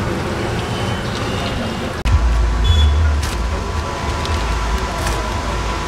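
Hot oil sizzling as chicken pakodas deep-fry in an iron kadhai. About two seconds in, a low engine rumble from road traffic takes over, with a few sharp clicks of a knife against a steel plate.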